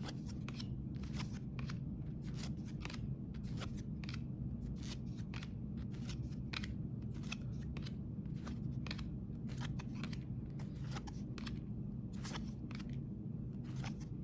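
Trading cards being handled and slid off a stack one at a time: many light, irregular clicks and rustles over a steady low hum.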